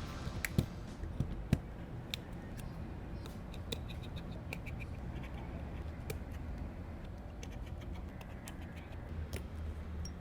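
Scattered small clicks and scratches of hand tools working on a phone's parts, with a steady low hum under them.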